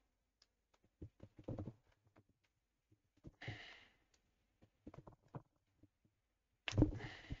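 Quiet scattered clicks and knocks of hands handling an electric scooter's hub motor wheel and its axle cable, with a short breathy exhale about three and a half seconds in. Near the end a louder knock comes with a second breathy exhale, the loudest sound.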